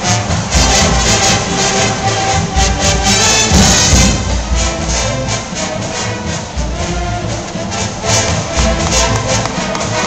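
Loud brass band music with drums keeping a steady beat, played live by a school pep band in the bleachers for a dance routine.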